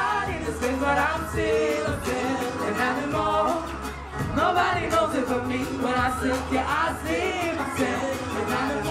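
Live vocal performance: singers voicing melodic, gliding lines into microphones over music with a steady low bass.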